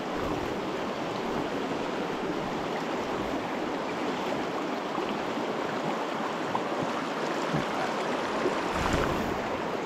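Shallow, fast river running over a rocky bed: a steady rushing of water.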